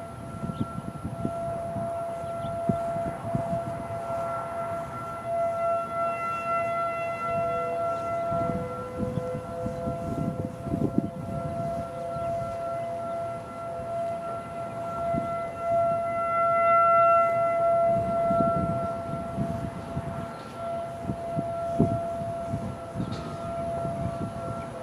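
Distant outdoor warning sirens holding a steady tone at two pitches, swelling and fading as they rotate. Right at the end the pitch starts to slide down as the sirens begin winding down at the end of the test.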